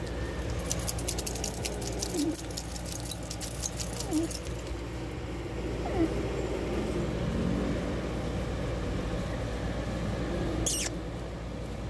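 A small black kitten mewing faintly, a few short calls about two, four and six seconds in. Rapid light clicking during the first few seconds, and a short high falling squeak near the end.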